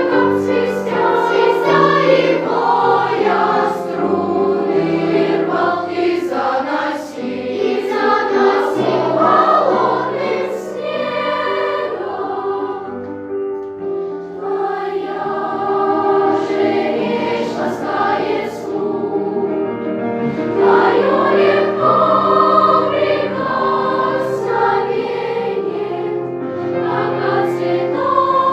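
A children's music school choir singing in parts, with sustained lines that swell and ease off, softer for a few seconds in the middle.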